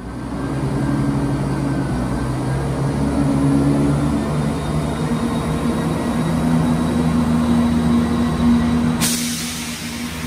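Diesel engines of a ScotRail Class 170 Turbostar diesel multiple unit running at the platform, a steady drone whose pitch rises from about six seconds in as the engines rev up to pull away. A sudden hiss of air joins about nine seconds in.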